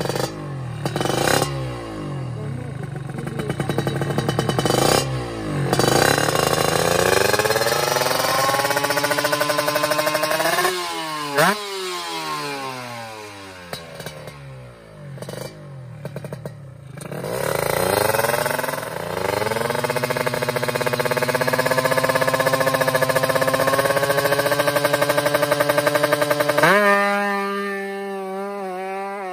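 Two-stroke Kawasaki Ninja drag bike with a racing exhaust revving while held in place for tuning: a few short throttle blips, then long climbs to high revs, one held for several seconds. Near the end the note changes abruptly as the bike pulls away.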